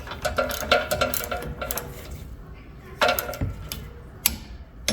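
Metal hand tools clinking and knocking against steel suspension parts in a series of short, irregular clinks, denser in the first couple of seconds, with a few louder single knocks later.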